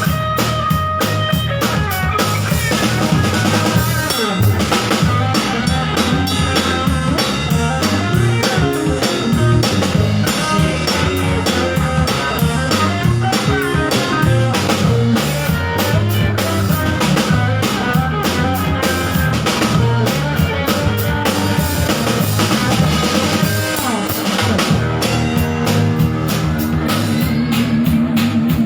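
A live band plays an instrumental passage, with the drum kit keeping a busy, steady beat under guitar and bass. Near the end the drumming thins out, leaving held notes.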